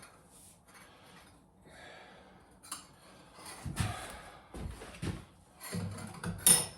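Clunks, knocks and scrapes of hard parts being handled and fitted during bath plumbing work, starting about three seconds in and coming irregularly, with a sharp knock loudest near the end.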